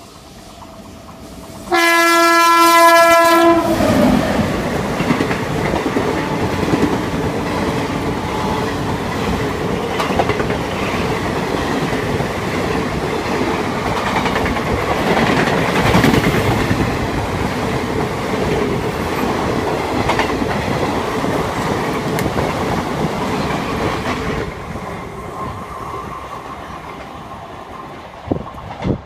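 Indian Railways electric locomotive sounding one loud horn blast of about two seconds as it approaches, then the passenger train running through the station at speed. The coaches' wheels clatter over the rail joints for about twenty seconds, and the noise drops away near the end as the last coach passes.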